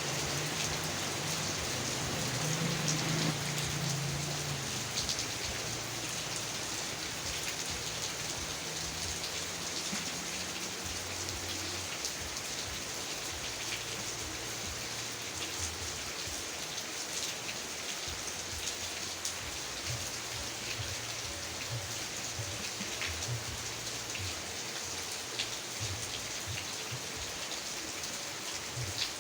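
Rain falling steadily, an even hiss with scattered individual drops ticking. A low rumble sits under it in the first few seconds and fades out.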